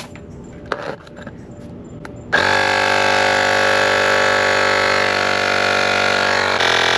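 A few light clicks, then about two and a half seconds in a cordless portable tire inflator starts pumping air into a bicycle tire, running with a loud, steady buzzing hum; its note shifts slightly near the end.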